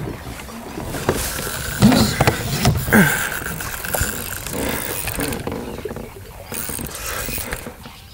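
Knocks and handling noise on a fishing kayak as a fish takes the trolled lure and the bent rod is grabbed, with two short falling exclamations from the angler.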